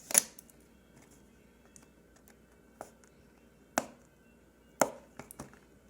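Phone box being handled: several short, sharp taps and knocks, the loudest just after the start, then a few more about a second apart.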